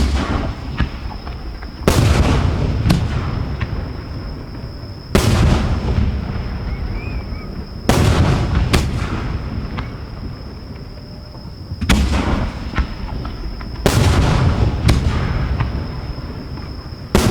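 Aerial fireworks shells going off at close range: a loud bang every two to four seconds, some followed by a smaller second bang about a second later, each trailing off in a long rolling echo.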